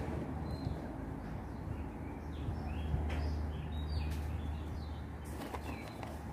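Ambient sound: scattered bird chirps over a low rumble that swells in the middle and eases off near the end.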